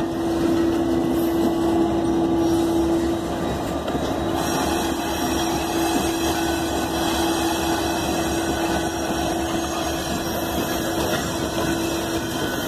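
Two freight trains passing at once: tank cars rolling by on the lower track and Norfolk Southern diesel locomotives running over the bridge above, a steady rumble of wheels and engines with a steady hum through it.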